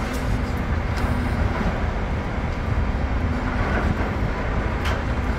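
Steady low rumble of a heavy diesel engine, the long-reach demolition excavator running at the site, with one sharp click near the end.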